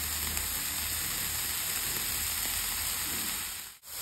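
Banana-flower and potato cutlet filling sizzling steadily in a frying pan, an even hiss that cuts out for a moment near the end.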